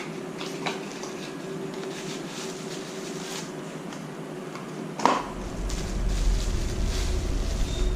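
Packaging being handled and opened by hand, with faint rustles and light clicks over a steady hum. There is a sharp click about five seconds in, and a low rumble runs from then on.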